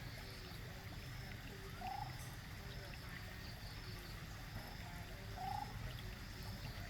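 Small pond waterfall trickling steadily, with a frog giving two short calls about three and a half seconds apart.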